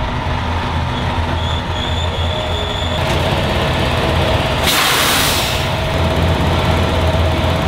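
Semi truck's diesel engine rumbling steadily as the rig pulls in and stops. About five seconds in, a sharp hiss of air of about a second from the air brakes.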